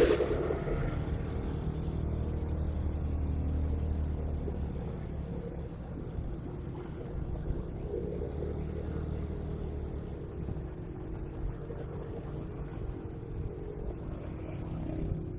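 Hino microbus diesel engine running through a newly fitted 'Serigala' (wolf) aftermarket exhaust, a steady deep exhaust rumble. A short loud burst comes at the very start, and the rumble is strongest in the first few seconds before easing slightly.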